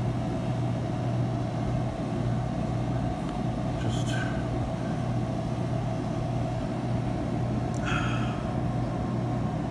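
Steady low hum of a deep freezer's refrigeration condensing unit running.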